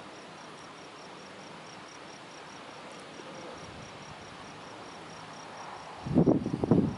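A steady high, pulsing chirp, about five pulses a second, typical of a cricket or other insect, over a soft outdoor hiss. About six seconds in, a loud, irregular low rumble breaks in and drowns it.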